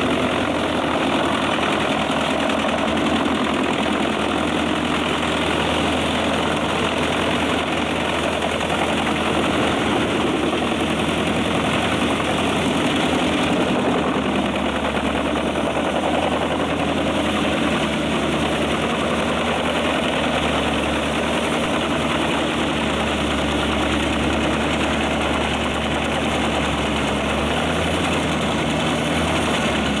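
Pezzolato PTH 900 tracked drum wood chipper working under load, its IVECO six-cylinder diesel running steadily while the feed chain draws pine logs into the toothed drum and shreds them into chips. The engine pitch rises near the end.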